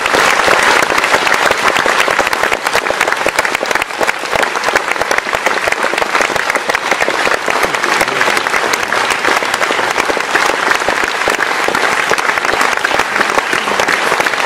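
Audience applauding steadily, a little louder in the first second or two.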